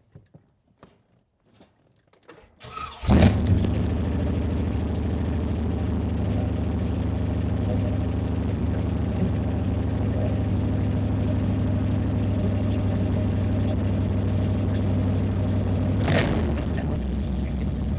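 1981 Corvette's 350 small-block V8 cranking briefly and catching about three seconds in, then idling steadily after a few faint clicks. A short, sharp noise cuts in once near the end.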